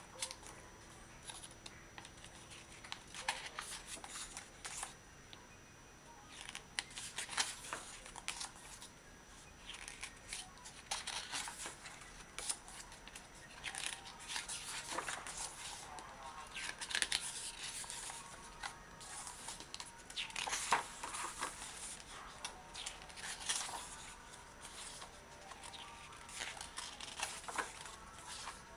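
Paper pages of a softcover catalog being turned by hand: repeated short rustling swishes and the slide of fingers over the paper, coming irregularly every second or two.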